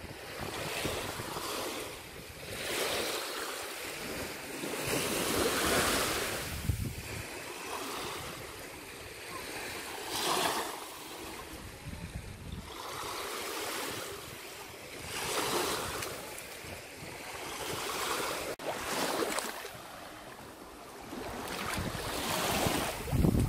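Small waves washing up onto a sandy beach and drawing back, a soft hiss that swells and fades every few seconds.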